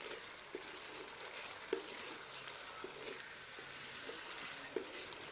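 Chicken and spices frying in oil in a cooking pot, with a low sizzle and a spoon stirring and knocking against the pot about once a second.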